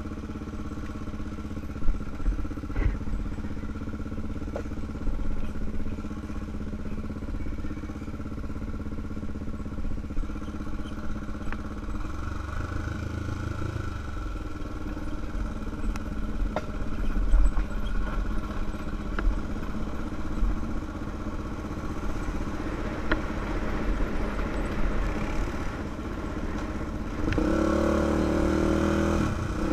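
Honda 400EX quad's single-cylinder four-stroke engine running steadily at trail speed, with knocks and rattles as the machine rides over rocks. Near the end the revs rise.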